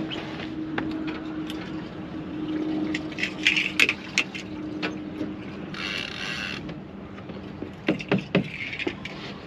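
A rod and casting reel worked through a cast, with sharp clicks and knocks from the reel. A short hiss comes about six seconds in as line pays out, and a small splash about eight seconds in as the sliding weight lands in the water.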